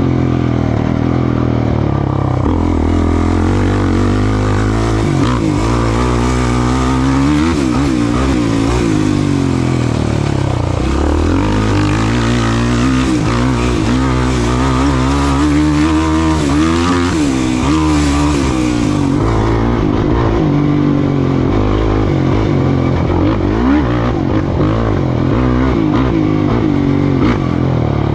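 Off-road racing vehicle's engine at high revs, its pitch climbing and dropping over and over as it accelerates and backs off across the course.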